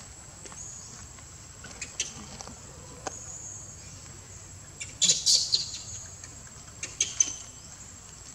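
A few short, high-pitched animal chirps and squeaks. The loudest cluster comes about five seconds in and a couple more follow near the end, over a steady thin high whine.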